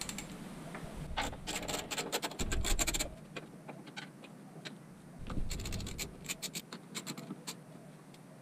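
Two bursts of rapid clicking and scratching from hands working parts and wiring around the battery in a car's engine bay, with dull handling bumps between them.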